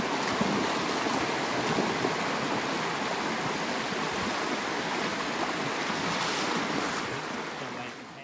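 Shallow, fast river rushing over rocks in a steady, loud wash of water, which cuts off near the end.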